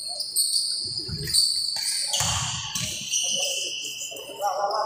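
A basketball bouncing a few times on a court, under a steady high-pitched tone.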